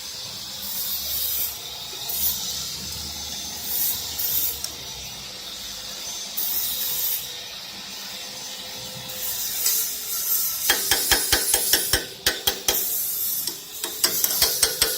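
A CNC wood lathe being adjusted while the turning knife is set: a steady hiss, then, from about ten seconds in, a quick run of sharp clicks, several a second.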